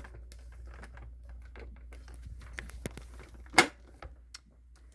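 Light plastic clicks and knocks from handling a Dyson DC18 upright vacuum as its clear bin is fitted back on, with one sharp click about three and a half seconds in, over a faint steady low hum.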